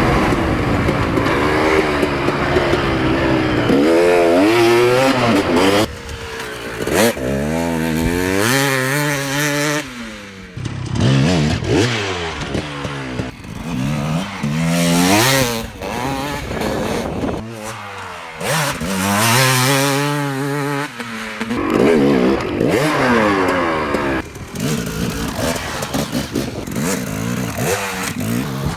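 Two-stroke KTM 300 dirt bike engine revving hard, its pitch climbing and falling back again and again.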